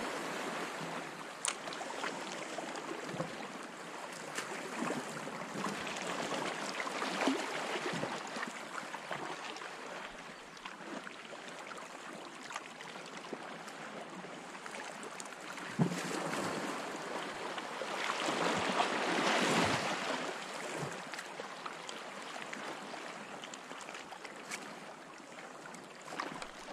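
Small sea waves lapping in shallow water, with wind on the microphone, swelling louder twice.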